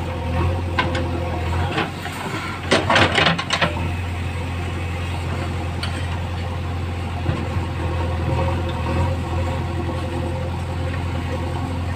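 JCB 3DX backhoe loader's diesel engine running steadily as the backhoe digs, with a short burst of clattering knocks about three seconds in.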